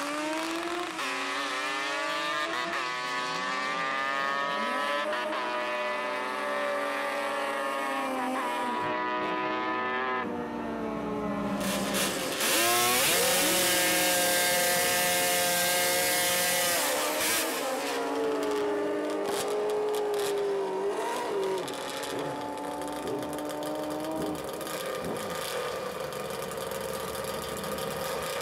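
Two-stroke drag motorcycle accelerating away down the strip, its pitch climbing and dropping again and again as it shifts through the gears. After about twelve seconds a second two-stroke drag bike revs loudly, blips the throttle up and down, and settles into a steadier idle near the end.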